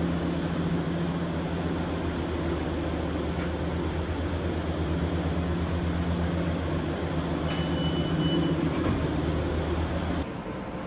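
Steady low machinery hum in a tramway station, with a short high beep about two-thirds of the way through. The hum cuts off suddenly near the end.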